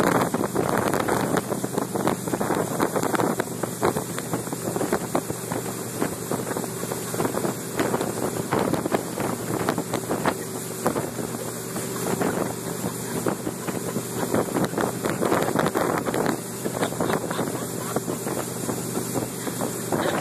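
Motorboat engine running steadily under way while towing, with the rushing wash of its wake and gusts of wind buffeting the microphone.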